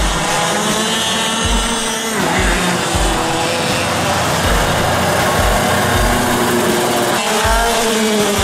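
Monaco kart's engine running as it laps the track, its pitch rising and falling with the throttle, with deep thumps recurring about once a second.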